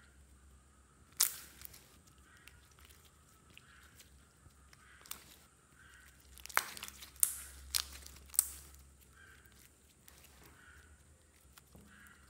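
Hands squeezing and folding a glossy clear red slime, giving sharp pops and clicks as trapped air bursts. One pop comes about a second in, and a quick run of several louder pops comes between about six and a half and eight and a half seconds in.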